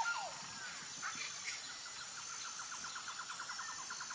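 Small birds chirping in a background nature ambience: a few short chirps, then from about a second and a half in a quick trill of repeated notes, over a faint steady high insect hum.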